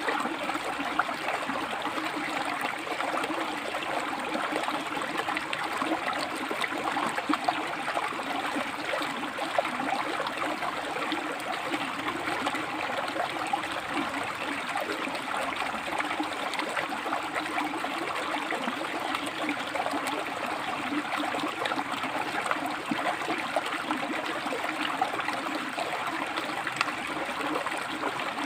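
Shallow river water flowing and splashing over rocks, a steady rushing babble with small splashes throughout.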